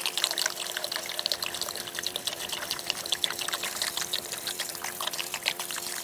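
Water poured by hand from a five-gallon water jug into the tub of a top-loading washing machine: a continuous splashing pour as the washer is filled.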